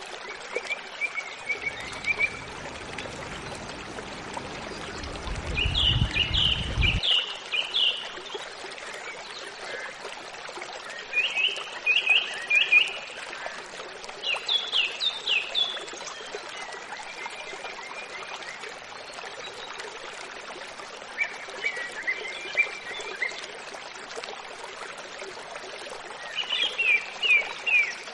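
Steady rush of a running stream with birds chirping in short, quick clusters every few seconds. A low rumble underneath stops suddenly about seven seconds in.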